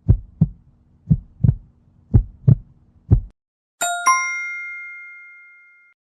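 Heartbeat sound effect: paired lub-dub thumps about once a second over a faint steady hum. About four seconds in, two quick bell-like dings follow and ring out for about two seconds.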